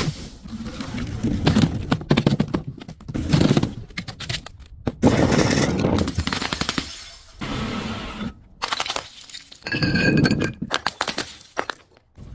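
Glass bottles breaking and shattering, with dense runs of sharp cracking and crunching impacts and clinking shards. A piece of glass rings briefly about ten seconds in.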